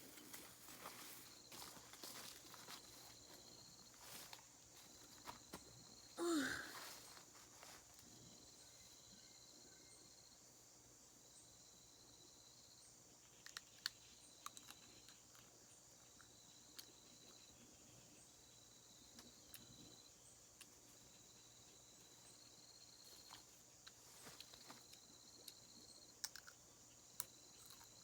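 Faint forest ambience: insects keep up a steady high drone with a chirp repeating about once a second, over scattered light clicks and rustles like footsteps in leaf litter. About six seconds in, one short loud call falls sharply in pitch.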